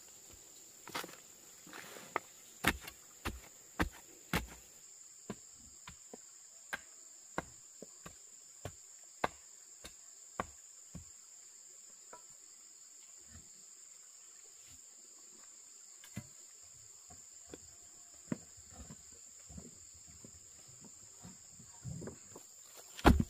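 A steady high chirring of insects runs throughout, over a series of sharp, evenly spaced knocks, about one and a half a second, for the first ten seconds or so. After that come a few scattered knocks, and a loud thump near the end.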